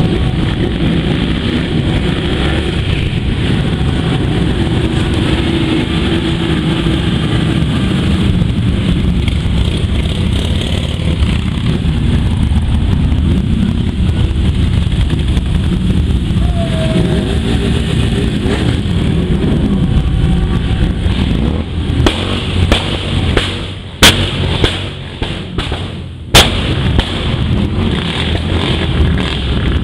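A column of Harley-Davidson V-twin motorcycles passing at low speed, their engines and exhausts making a steady, loud, deep running sound. Near the end come two sharp bangs about two seconds apart, the loudest sounds here.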